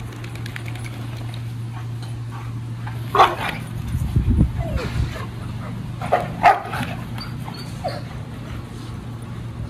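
Several dogs in a group giving a few short barks and yelps, loudest about three seconds in and again about six and a half seconds in, with a brief whine between.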